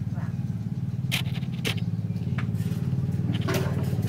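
A motor running steadily with a fast, even pulse, and a few short sharp clicks over it.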